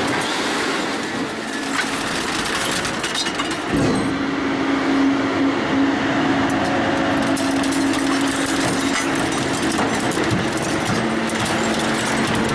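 Shark 1100 scrap shear running as its press head comes down and crushes a bundle of rebar and scrap sheet. A knock about four seconds in, then a steady low hum under load, with scattered metal crackles and creaks.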